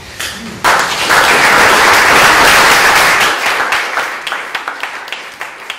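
Audience applauding: the clapping breaks out about half a second in, holds full for a couple of seconds, then thins to scattered single claps as it dies away.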